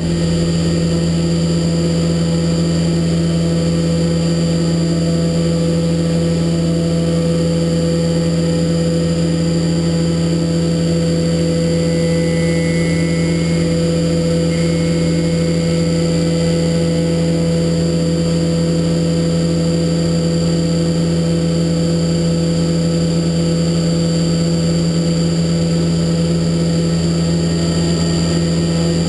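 HAAS Super Mini Mill 2 CNC spindle running at a constant speed while milling a spindle spanner: a steady hum with a thin high whine above it.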